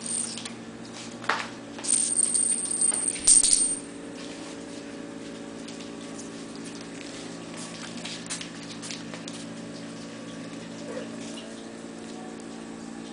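A jingly cat toy, a silver chain with a small ball, rattling and jingling as it is dragged and batted across a tile floor. The jingling is loudest for about two seconds near the start, then gives way to scattered faint clicks over a steady low hum.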